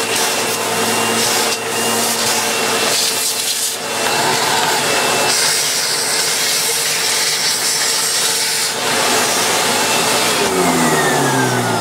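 A vacuum cleaner running with its hose pushed into a Dyson's cyclone assembly, sucking debris out of it; the rush of air changes as the nozzle is moved. Near the end the motor is switched off and its whine falls away.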